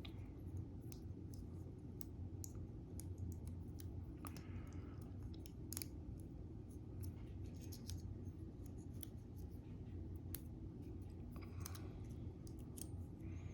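Small irregular clicks and scratches of a thin metal shim being worked into a plastic lock cylinder, over a steady low hum.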